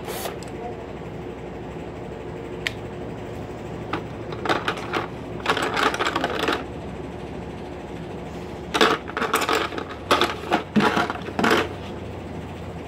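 Pencil crayons clattering and rattling as they are handled, in several short bursts from about four to eleven seconds in.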